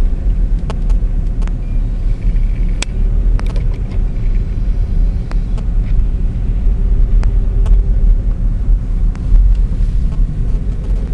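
Car driving, a steady low rumble of engine and road noise heard from inside the car, with a few scattered clicks.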